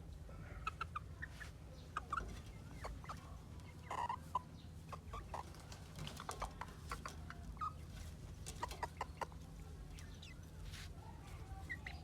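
Chickens clucking, short calls coming irregularly over a steady low hum, with a few sharp clicks mixed in.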